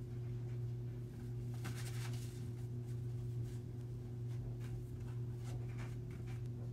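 Sheets of paper being handled and unfolded, rustling lightly, with a short burst of rustling about two seconds in and smaller ones later. A steady low hum runs underneath.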